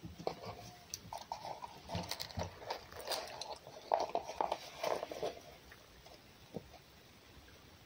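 A red fox eating at close range: crunching and chewing with sharp, irregular clicks that stop about five seconds in.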